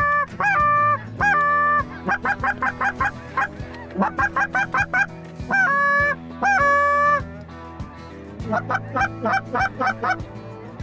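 Geese honking in bouts: long held honks near the start and again about six seconds in, between quick runs of short honks several a second, then a short lull and another run of short honks near the end.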